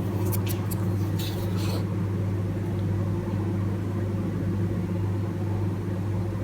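Steady low electrical hum, with a few faint light clicks in the first two seconds.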